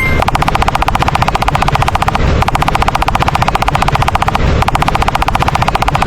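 A rapid, steady rattle of sharp repeated clicks, many a second, with two brief breaks in its brightness a little over two and about four and a half seconds in: an animation sound effect like machine-gun fire.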